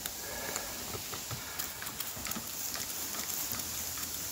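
Cleaning solution fizzing and crackling as it soaks into an oily engine casing: a steady patter of tiny pops.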